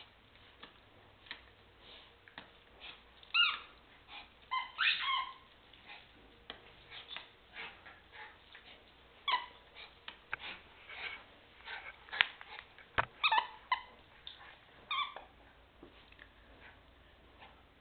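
Cairn terriers playing with plush toys on a tile floor: their claws click and scrabble on the tiles, and short high squeaks, some rising, come in several brief bursts.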